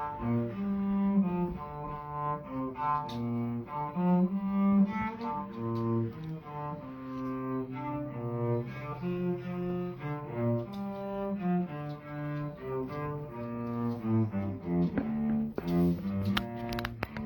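A solo cello playing a slow melody of held, bowed notes.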